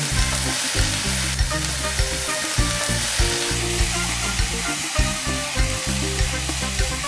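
Egg fried rice frying in a hot nonstick pan, sizzling steadily while a spatula stirs and scrapes through it, with soy sauce just added.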